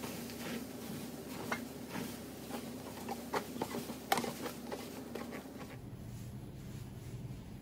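Scattered small clicks and scratchy ticks of close handling over a steady low electrical hum; near six seconds in the hum shifts to a lower one.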